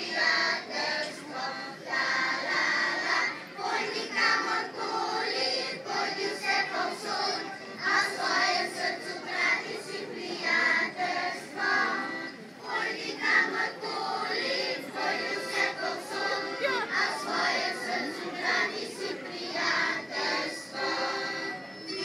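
Kindergarten children's choir singing a song together.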